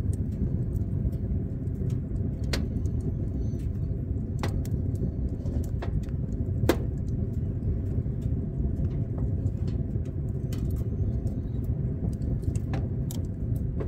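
Wood fire crackling inside a tent wood stove, with a few sharp pops scattered through, over the steady low rumble of Lake Superior waves breaking on the beach, which are pretty loud.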